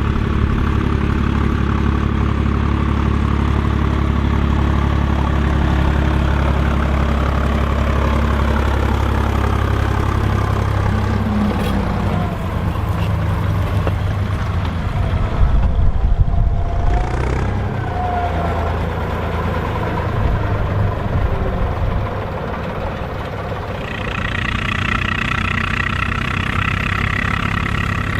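Volvo BM farm tractor diesel engines running steadily while ploughing. The engine note shifts about a third of the way in, there is a louder rough patch around the middle, and a second, higher engine tone comes in near the end.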